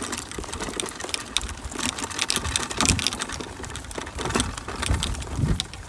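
Close, irregular crunching and scuffing as the recording moves along a gravel path and onto grass, with a low rumble of handling or wind on the microphone.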